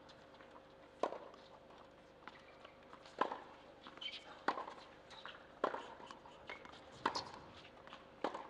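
Tennis balls being struck or bounced: about six sharp pops at uneven gaps of one to two seconds, over a faint steady hum.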